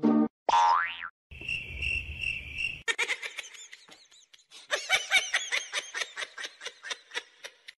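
Comedy sound effects: a quick rising whistle-like glide, then a cricket chirp pulsing about four times a second, then several seconds of rapid high chirping.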